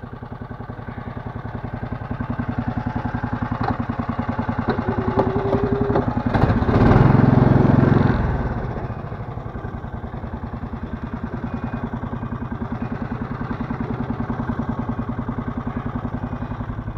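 The Lifan 20 hp engine of a Taiga snowmobile running with a fast, even pulse. It revs up to its loudest about seven seconds in, then drops back to a steady run.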